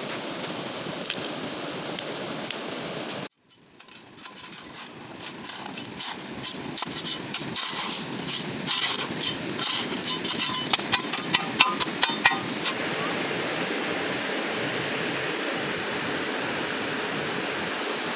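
Steady outdoor noise that cuts off abruptly about three seconds in. The noise builds back, with a run of sharp crackles and snaps over several seconds, the loudest sounds here. From about two-thirds of the way through comes a steady, even rush of flowing water.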